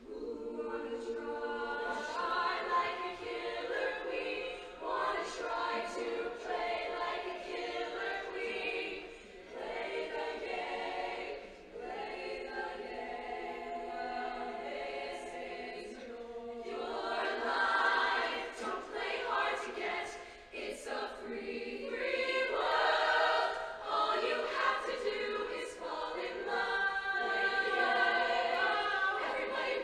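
A large mixed show choir singing in harmony, holding long chords in phrases that swell and fall away.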